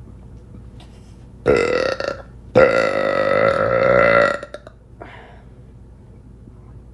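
A woman burping on command twice: a short burp about a second and a half in, then a longer, louder one lasting nearly two seconds.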